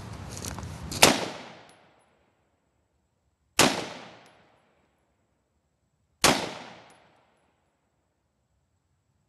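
Three single shots from a Del Ton TRX 16 rifle, about two and a half seconds apart, each followed by a short echo off the range, aimed at a Tannerite target. Faint shuffling comes before the first shot.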